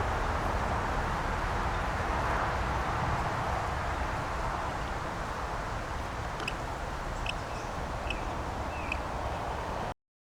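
Steady outdoor background noise, a rushing hiss over a low rumble, with a bird giving four short, high chirps evenly spaced in the second half. The sound cuts off abruptly to dead silence near the end.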